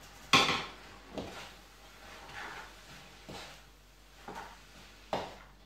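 Wooden spatula knocking and scraping against a wok as chopped leek is stirred in: irregular knocks about once a second, the loudest just after the start.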